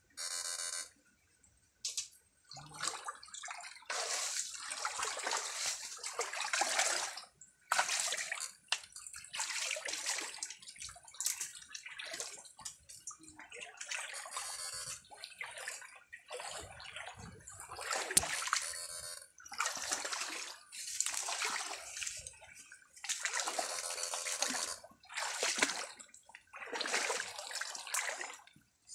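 Feet wading and splashing through shallow stream water, in irregular surges of sloshing a second or two long with short pauses between.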